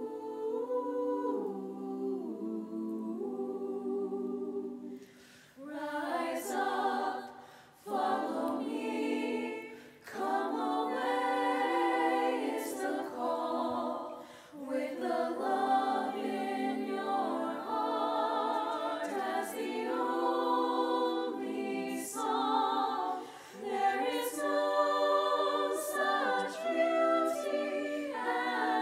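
A cappella choir singing in sustained chordal phrases with short breaks between them. It opens softly on a hummed passage, and about five seconds in the voices move into sung words.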